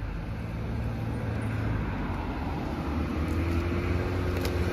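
Road traffic: a car driving past on the road with a low steady rumble that grows louder toward the end. A few faint crinkles from a paper sandwich wrapper being opened.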